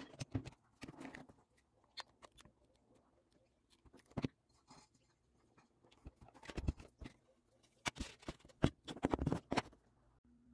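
Scattered light clicks and taps of a small metal plate and washer being handled on a hardboard lever that pivots on a wire, with a sharper knock about four seconds in and bunches of clicks later on.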